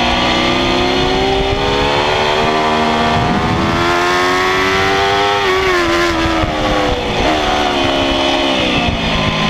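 Kawasaki ZX-10R inline-four sport bike engine heard on board at speed, the revs climbing slowly for about five seconds, then the bike rolls off and the revs drop in a couple of steps as it is shifted down.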